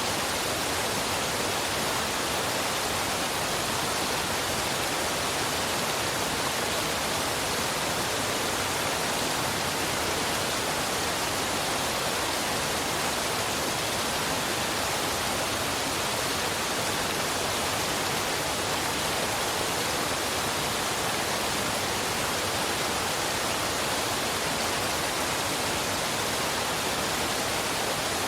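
Waterfall and river water rushing, a steady, even hiss with no breaks or changes.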